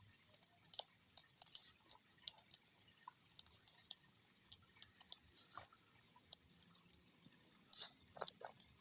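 A steady high-pitched insect chorus, with scattered faint clicks and crackles over it.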